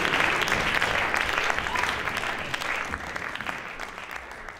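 Theatre audience applauding, many hands clapping at once, fading steadily away.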